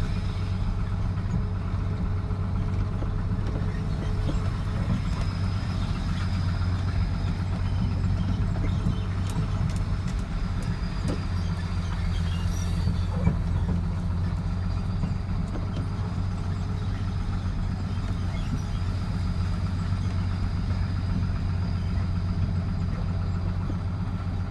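Truck engine idling steadily, an even low hum with no revving.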